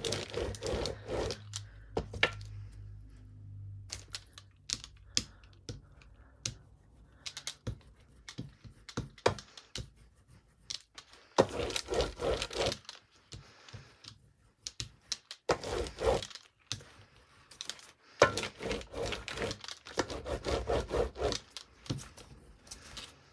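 Rubber brayer loaded with paint rolled back and forth over crumpled brown kraft packaging paper, making a rough, crinkly, tacky rolling noise in several bursts, with clicks and knocks in between.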